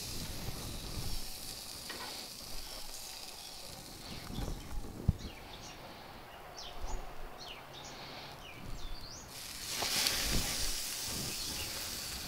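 Butter-coated cake slices sizzling on a hot gas grill grate, with a louder rush of hissing about ten seconds in as dripping butter flares up in flames. Short bird chirps and a few light knocks come in the middle.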